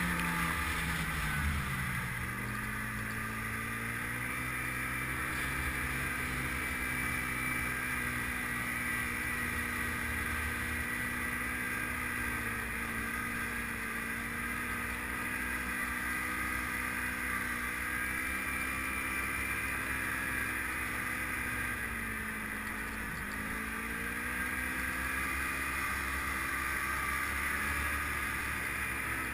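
Snowmobile engine running steadily as the sled travels at speed, its pitch dropping and climbing back briefly about two seconds in and again about twenty-three seconds in as the throttle eases and picks up.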